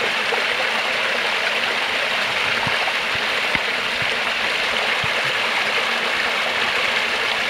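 Small woodland brook pouring over a little rock cascade into a pool: a steady rush of water.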